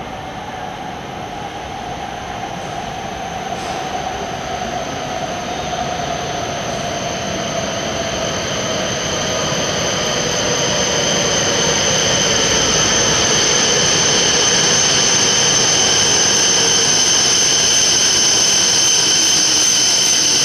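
E7/W7-series Shinkansen train pulling into the station as it slows, growing steadily louder as it nears. A whine falls slowly in pitch as the train slows, over a steady high-pitched squeal.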